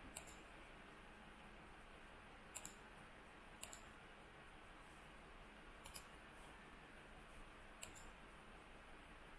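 Faint computer mouse clicks over quiet room hiss: five short clicks a couple of seconds apart, two of them quick double clicks.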